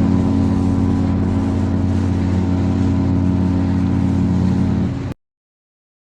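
A ship's horn sounding one long, deep, steady blast that cuts off suddenly about five seconds in.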